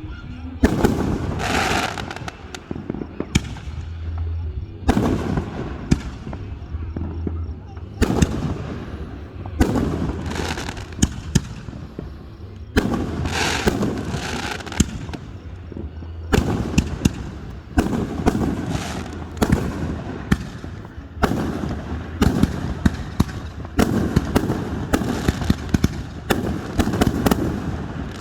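Aerial fireworks display: shells bursting with many sharp bangs in quick succession, coming in clusters and growing nearly continuous over the last dozen seconds.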